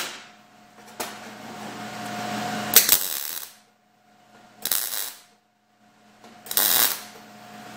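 Three short bursts of MIG welding, each about half a second, tacking a galvanized steel tee joint whose coating has been ground off. A steady machine hum runs between the bursts.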